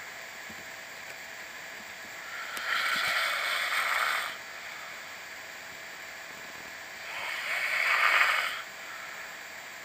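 A sleeper snoring: two long, rasping snore breaths about four and a half seconds apart, each lasting a second and a half to two seconds, the second swelling louder toward its end.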